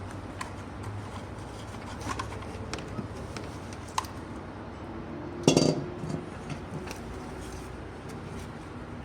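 Hand tools clinking and tapping on metal, with scattered light taps and one louder clatter about five and a half seconds in, over a low steady hum.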